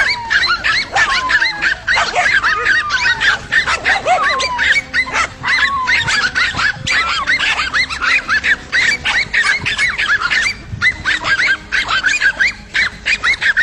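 Several dogs barking over one another without pause, a pack holding a large lizard at bay, with a few falling whines in the first five seconds.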